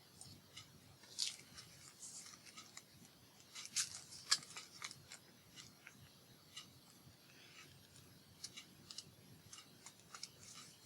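Faint, irregular small clicks, taps and rustles of paper and craft tools being handled at a crafting table, with a few sharper snips or taps about a second in and around four seconds in.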